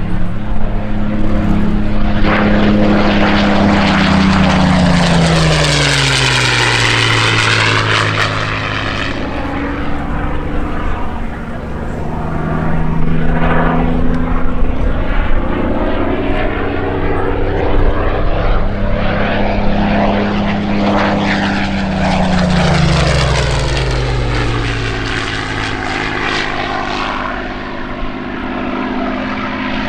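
Supermarine Spitfire Mk Vc's Rolls-Royce Merlin V12 engine making two passes, the engine note dropping in pitch as it goes by, a few seconds in and again about twenty seconds in.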